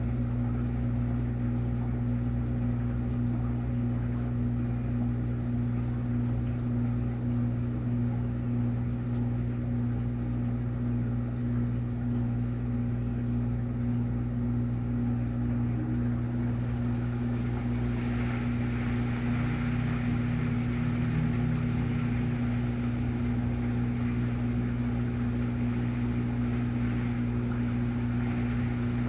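Washing machine running with a steady motor hum; a hissier noise joins about 18 seconds in.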